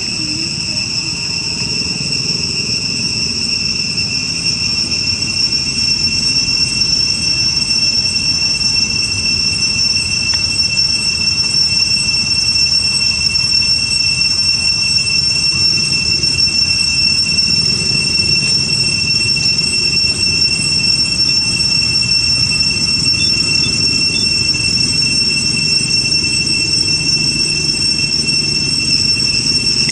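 Insects droning: a steady, high-pitched, unbroken whine, with a rumbling low noise underneath that grows a little louder over the first few seconds.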